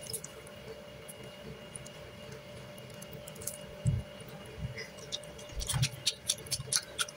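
Fried tofu fritters being torn open by hand: faint scattered crackles and ticks from the crisp fried crust, clustering near the end, with a couple of soft thumps.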